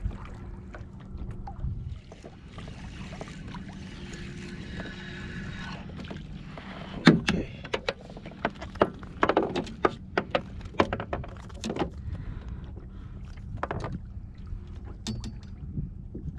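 Sharp, irregular clicks and knocks of gear being handled on a fishing kayak, mostly in the middle of the stretch, over water noise and a steady low hum.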